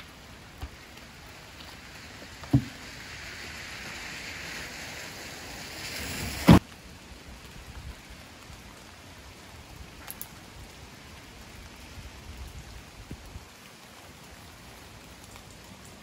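Rain falling, a steady patter, with two sharp thumps about two and a half and six and a half seconds in; the second thump is the loudest.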